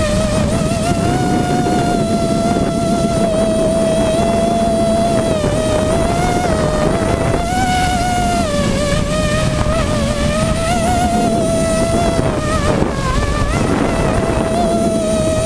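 Six Robbe 2216 brushless motors and props of a small hexacopter whining in flight, heard close from the onboard camera. The whine wavers constantly and shifts up and down in pitch with throttle, dipping about eight and a half seconds in and again near thirteen seconds.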